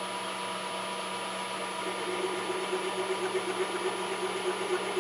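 Knee milling machine running with a steady motor hum; about two seconds in, a countersink cutter starts cutting into a metal bar, adding a pulsing tone that carries on to the end.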